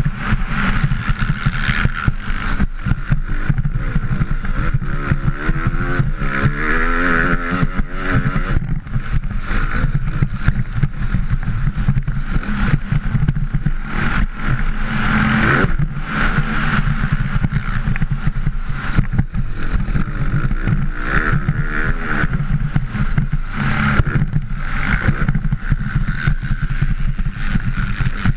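A motocross bike's engine revs hard, rising and falling in pitch through the gears as it accelerates and backs off. Heavy wind rumble on the helmet-mounted camera's microphone runs under it.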